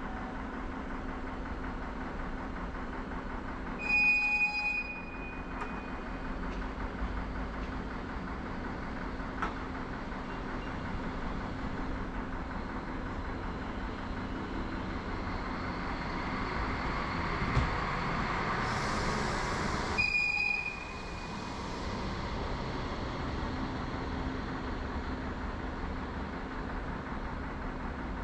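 Czech Railways class 471 electric multiple unit running along the line with a steady hum and rail noise. A short, loud high-pitched signal tone sounds twice, about 4 seconds in and again about 20 seconds in, with a burst of hiss just before the second.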